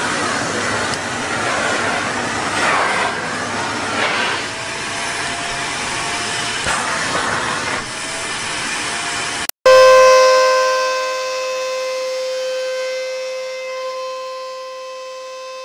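Vacuum cleaner running with a steady rushing hiss. After a sudden break about ten seconds in, another vacuum cleaner comes in loud and settles into a steady high-pitched whine.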